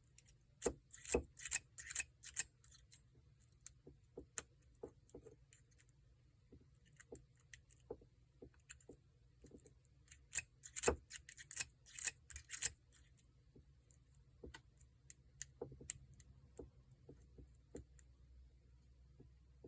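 Small metallic clicks and ticks of a hook pick and tensioner working the pins inside a Paclock 90A-PRO padlock. The clicks come in two quick clusters, about a second in and again around ten seconds in, with scattered single ticks between.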